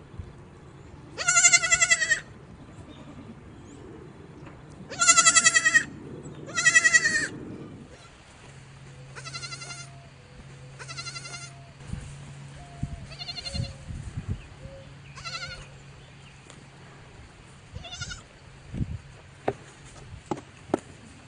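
Goats bleating: three loud, wavering bleats in the first seven seconds, then several fainter, shorter bleats. A few sharp knocks come near the end.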